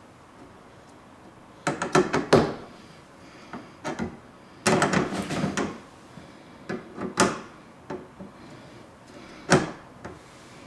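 Server RAM modules being pushed and seated in motherboard DIMM slots: sharp plastic clicks and clatter, a quick run about two seconds in, a longer clatter around five seconds, then single clicks near seven and nine and a half seconds.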